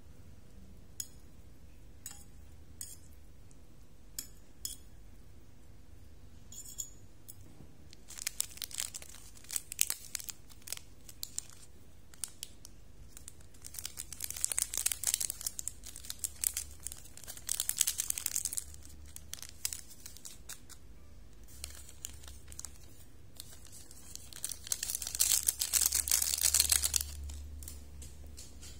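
A fork clinking a few times against a ceramic plate while mixing instant noodles, then plastic seasoning sachets crinkling and tearing in several long bursts, the loudest near the end.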